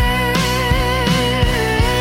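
Slow blues song: a singer holds one long note with vibrato over guitar and a steady drum beat of about three hits a second.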